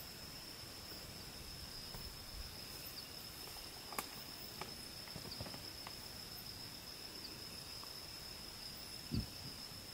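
An insect calling with one steady high-pitched tone over faint night ambience, with a sharp click about four seconds in and a low thump near the end.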